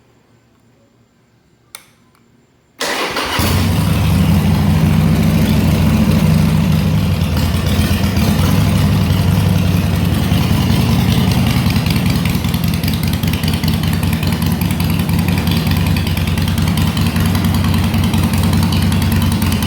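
Harley-Davidson Sportster 1200 Custom's air-cooled Evolution V-twin, exhausting through Screamin Eagle II mufflers with the baffles in, starts on choke about three seconds in. It then idles loudly and steadily, with a lumpy low beat.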